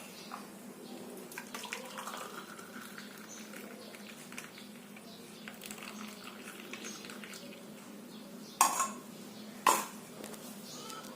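Pots and utensils clinking and liquid pouring as a boiled herbal decoction is strained from a saucepan into a cup, with two sharp knocks about a second apart near the end, the loudest sounds.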